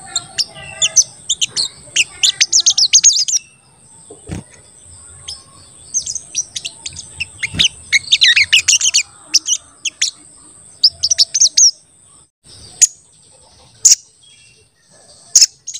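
Caged olive-backed sunbird (sogon) calling in fast runs of high, sharp chirps, three long bouts, then a few single sharp notes near the end.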